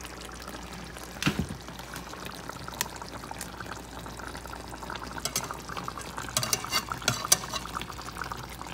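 Sauce bubbling in a metal pan of fish pieces as a slotted metal spatula stirs and bastes. The spatula knocks against the pan once about a second in, then clicks and scrapes against it several times near the end.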